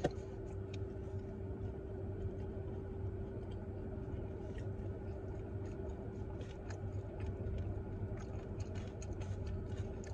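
Steady low hum of a running car, heard inside the cabin, with faint scattered clicks from chewing and handling food, more of them in the second half.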